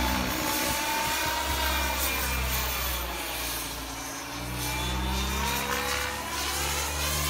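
Turbine-powered RC helicopter (KingTech K-45) flying, its whine falling in pitch over the first few seconds and then rising again near the end.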